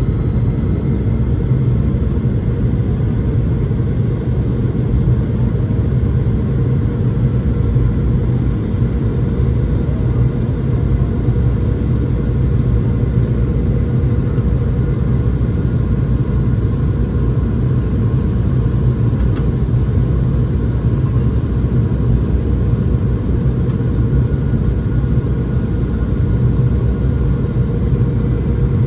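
Steady low rumble of airflow and engines inside the cabin of a Boeing 717-200 on approach, with faint steady whine tones from its rear-mounted Rolls-Royce BR715 turbofans.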